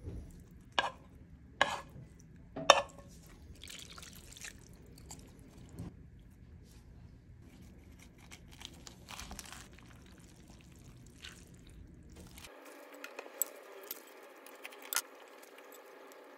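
Food being handled in a glass salad bowl: three sharp taps against the glass in the first three seconds, then soft rustling of salad and meat. Near the end, chopsticks toss rice noodles through the salad with light clicks on the bowl.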